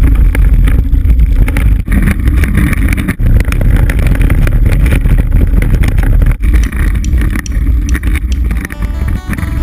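Heavy wind buffeting on a moving camera's microphone, mixed with the rumble of kick-scooter wheels rolling over wet tarmac.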